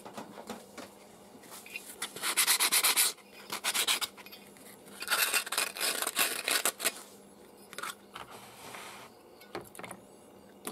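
Fingers rubbing and scrubbing the metal spinner head of a homemade cotton candy machine to clean it. The rubbing comes in two loud runs of rapid strokes, about two seconds in and again about five seconds in, with lighter rubbing near the end.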